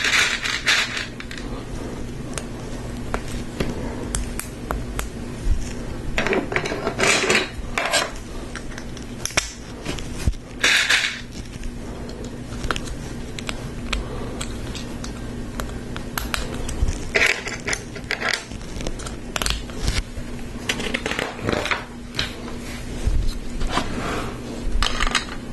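Hard plastic Lego Technic pieces clicking and clattering, picked up, handled and fitted together on a table, in scattered irregular clicks with a few short bursts of rattling.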